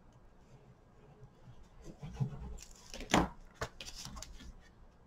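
Card stock being handled and pressed down on a craft desk: soft knocks, one sharper tap a little after three seconds in with a click just after, then light paper rubbing.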